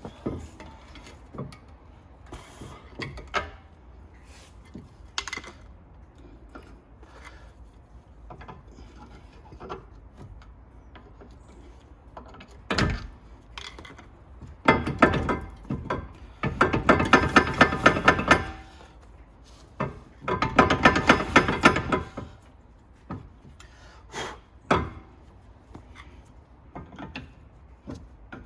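A screwdriver prying at a Brembo brake caliper and pads, with scattered metal clicks and knocks. In the second half there are two long runs of rapid metallic clicking and rattling.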